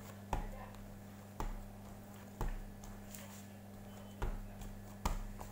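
Dough being kneaded by hand in a plastic tray: five dull thumps about a second apart as the dough is pressed and pushed against the tray, over a steady low hum.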